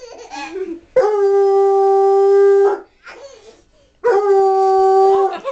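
Redbone coonhound howling: two long, steady-pitched howls. The first lasts about two seconds and the second about a second and a half, with a short pause between them.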